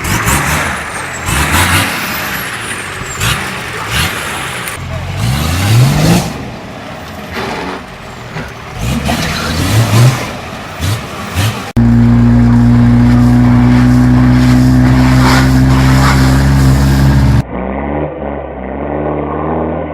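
Off-road vehicle engines revving in rising surges, with knocks and clatter. After a sudden cut, an engine runs held at steady high revs for about six seconds, then cuts to another engine running at lower revs.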